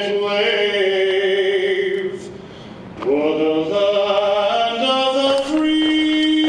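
Chanted singing as background music: a voice holds long notes that step in pitch. It drops away for about a second, two seconds in, then resumes and holds one long note near the end.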